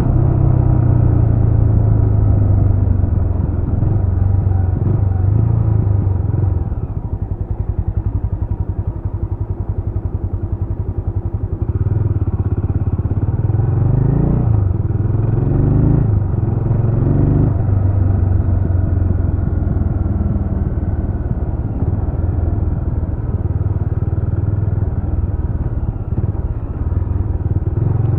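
Jawa RetroTrail 650's single-cylinder engine heard from the rider's seat. It drops to low revs with a steady pulsing a quarter of the way in, then pulls away with revs rising and breaking off at each gear change, and settles into steady running.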